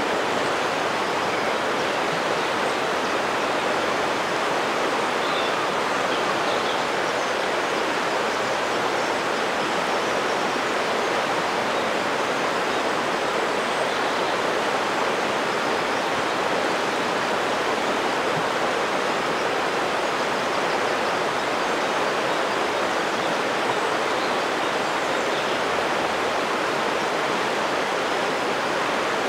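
Flowing river water rushing steadily, an even unbroken hiss.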